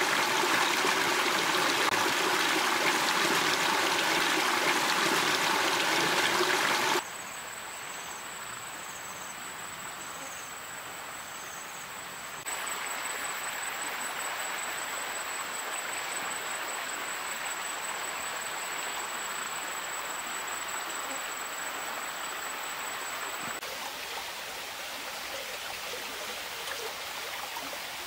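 Flowing stream water, loud and close for the first seven seconds, then quieter after a sudden cut. In the quieter part a steady high whine runs alongside the water and stops about four seconds before the end.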